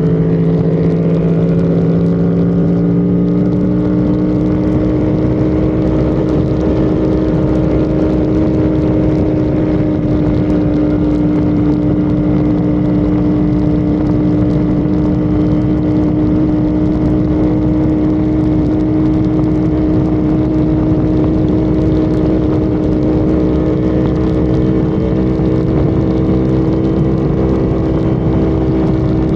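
Honda Civic FD's engine running hard at sustained highway speed, heard onboard under heavy wind and road noise. The engine note climbs slightly over the first few seconds as the car gathers speed, then holds steady.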